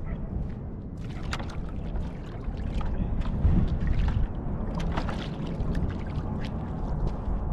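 A bait pump sucking ghost shrimp out of wet sand and mud: irregular squelching, slurping and splashing strokes of water and mud, over a steady low rumble.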